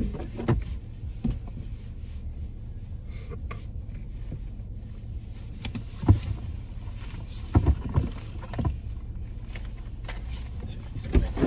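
Steady low rumble of a car idling, heard inside the cabin, with a few short soft knocks and rustles from handling an earphone cable and clothing.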